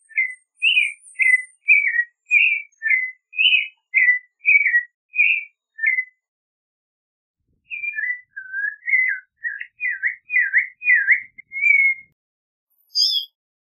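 Clay-colored thrush singing: a run of short, slurred whistled phrases about two a second, then a pause of nearly two seconds, then a second run of notes that dip and rise. Near the end come a few brief, higher-pitched notes.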